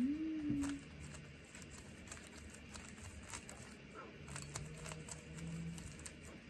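Plastic Rubik's cube clicking faintly as its layers are twisted in quick, irregular turns. A short low hum of a voice rises at the start, and another is held for about a second and a half near the end.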